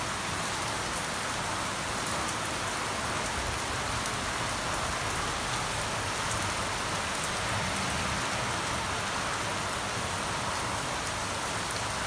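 Heavy rain falling steadily on garden shrubs and lawn: an even hiss with scattered sharp drop ticks.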